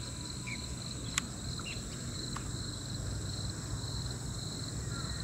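Steady insect chorus, a continuous high-pitched buzz, with a few faint short bird chirps over it and a single sharp click about a second in.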